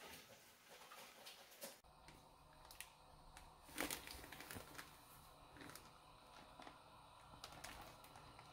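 Near silence: faint room tone with a few scattered light clicks and taps.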